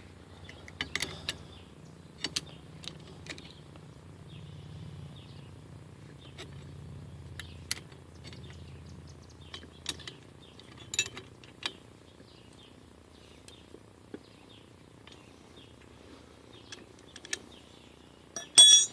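Scattered metal clicks and clinks of hand-tool work as a nut is run up all-thread to draw a tube out, ending in a sharp metallic clank near the end. Birds chirp faintly, and a low hum runs through the first half.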